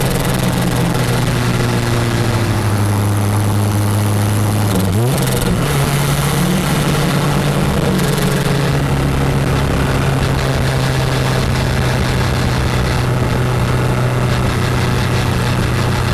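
Toyota MR2 Turbo's 3S-GTE turbocharged four-cylinder engine running at a steady speed, its pitch stepping up quickly about five seconds in and then holding steady again.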